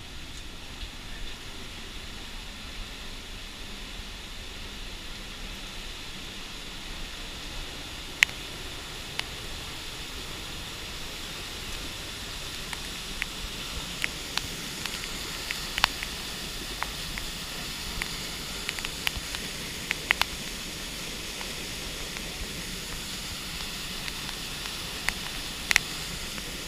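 Tunnel Falls, a tall waterfall on Eagle Creek, rushing steadily and growing slightly louder toward the end, with scattered sharp clicks from about eight seconds in.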